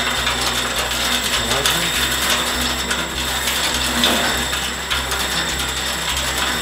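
Haldrup seed thresher running under its electric motor, a steady high whine over a dense, even rattle of its spinning mechanism.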